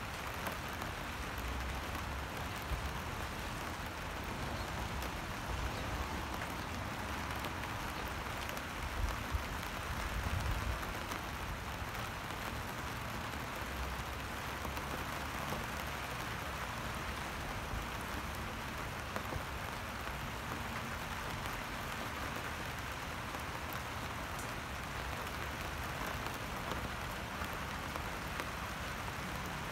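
Steady rain falling, drops pattering on a puddle and wet pavement, with a brief low rumble about ten seconds in.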